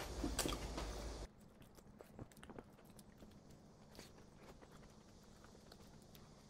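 A bite into a toasted-bread potato-egg salad sandwich, with a couple of crisp cracks, cut off abruptly about a second in; then quiet room tone with a few faint small clicks.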